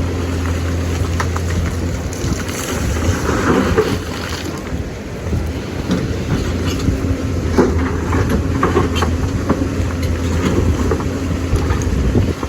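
Lonking excavator's diesel engine running steadily, with scattered knocks and clatter from the machine working in the river, over a steady rush of noise.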